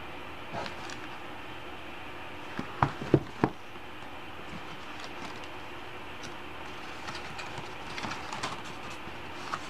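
Paper pop-up book being handled with gloved hands: pages and card pop-up pieces rustling and clicking. There is a cluster of three or four sharp knocks about three seconds in, and lighter crackling clicks near the end as a page turns and a pop-up unfolds.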